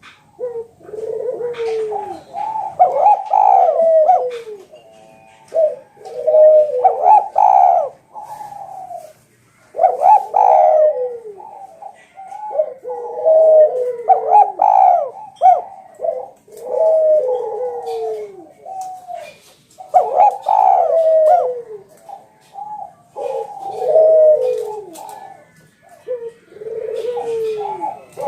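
Spotted dove (Javanese tekukur) cooing loudly and repeatedly, a new cooing phrase every two to three seconds.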